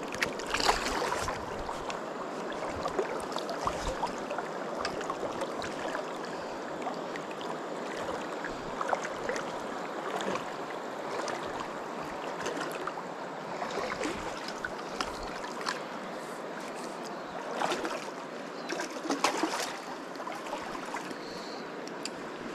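Flowing river water, a steady rush, with a few brief louder sounds about a second in and twice near the end.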